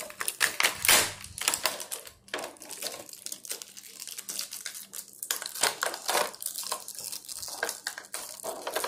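Clear plastic blister tray from an action figure's packaging crinkling and crackling irregularly as it is bent and twisted by hand, working to free small accessory hands that are stuck tight in it.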